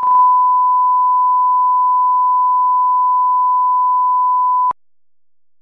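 Steady 1 kHz line-up test tone, the reference tone that goes with colour bars, cutting off abruptly with a click a little before the end.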